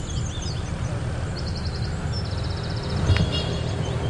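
Outdoor golf-course ambience: birds chirping and giving short rapid trills over a steady low rumble, with one sharp click about three seconds in as the club strikes the ball on a short approach shot.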